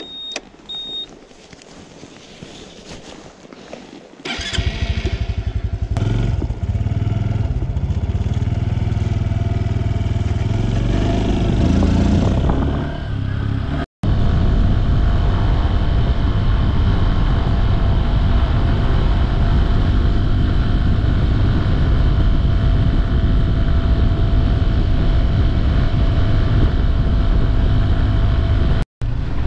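Two short high beeps, then about four seconds in the single-cylinder engine of a Honda Super Cub C125 starts up and runs loud and steady, the constant drone of the small motorcycle being ridden.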